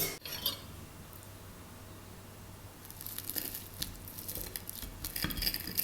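Crisp-fried mushroom pancake crunching, a dense run of small crackles that starts about three seconds in.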